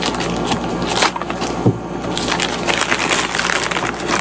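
Packaging rustling and crinkling as hands dig through a subscription box, a dense run of small crackles.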